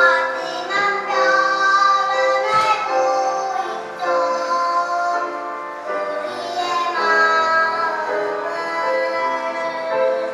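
Children's choir singing a song with instrumental accompaniment, the voices coming in strongly at the start and holding sustained notes.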